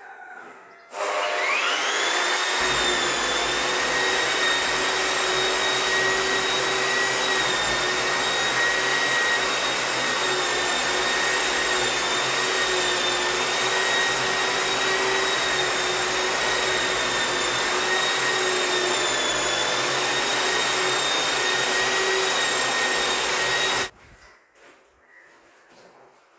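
Asian Paints wall putty sanding machine switched on about a second in, its motor whine rising and settling, then running steadily with its dust-extraction hose drawing air while it sands a putty-coated wall. It switches off suddenly near the end.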